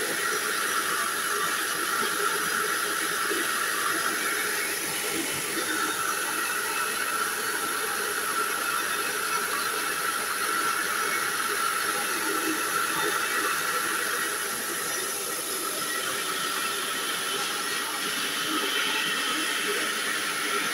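Small rice huller milling paddy: its motor and rotor run steadily with a constant hiss of grain rushing through and milled rice pouring from the chute.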